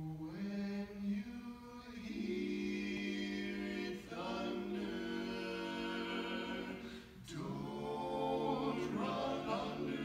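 Barbershop quartet singing a cappella in four-part close harmony, holding sustained chords in phrases, with short breaths between phrases about four and seven seconds in.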